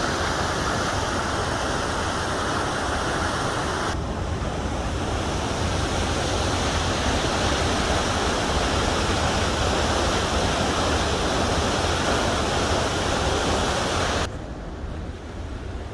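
Steady rushing of a large waterfall, a dense even wash of falling water. It changes character about four seconds in and turns quieter and duller near the end.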